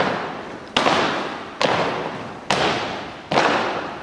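Unarmed exhibition drill team striking in unison: five sharp, loud strikes about one every 0.85 seconds, each echoing through the gymnasium.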